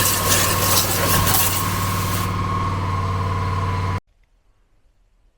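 Pressure washer running and spraying, a steady machine hum under a loud hiss of spray. About two seconds in the spray stops while the machine keeps running, and at about four seconds everything cuts off suddenly, leaving faint bird chirps.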